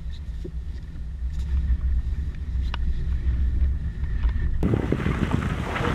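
Ford Focus engine and road drone heard inside the cabin while driving, a steady low hum. About four and a half seconds in, it changes abruptly to a louder hiss of tyres on wet asphalt, heard from outside the car.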